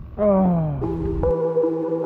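Electronic music starts: a synthesized tone glides downward for about half a second, then settles into steady, held synth notes.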